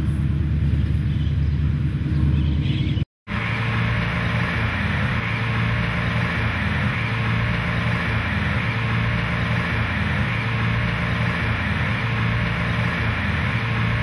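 A steady, low rumbling drone laid over the scene as horror sound design. It cuts out for an instant about three seconds in, then comes back as a denser, harsher rumble with hiss.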